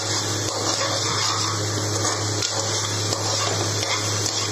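Ground masala paste sizzling steadily in hot oil as it is sautéed, a stage where it is cooked until the oil separates, with a steady low hum underneath.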